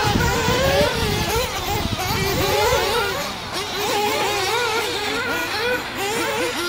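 Several 1/8-scale nitro buggies' small two-stroke glow engines buzzing, their pitch rising and falling as the throttle is worked around the track. A low rumble underneath drops away about three seconds in.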